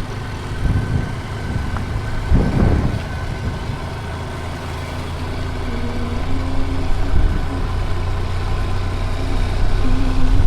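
Motorcycle engine running at low speed amid traffic, with a steady low hum and a brief louder surge about two and a half seconds in.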